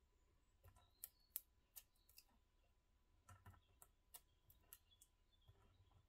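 Faint, irregular small clicks and ticks of tweezers picking adhesive foam blocks off their backing strip and handling them, about a dozen light taps in all.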